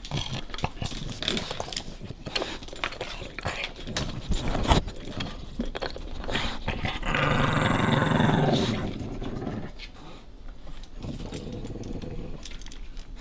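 French bulldog gnawing a chew bone in sharp clicking, crunching bites, then growling loudly for about three seconds from around seven seconds in, and again more softly near the end: a warning while it guards its bone.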